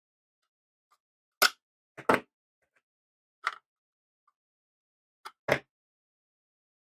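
Sharp clicks and knocks from a 3D-printed plastic case and its small parts being handled and worked on. There are four separate knocks, two of them doubled, spaced a second or two apart.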